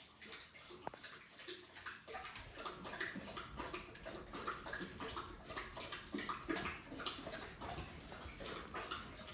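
Dogs lapping water from a bowl: rapid, irregular wet laps and splashes.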